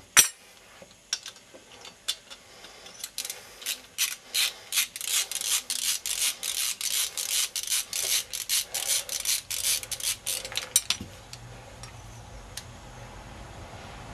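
A ratchet wrench clicking in quick back-and-forth strokes, working a nut, after a single sharp knock at the start; the clicking stops about eleven seconds in.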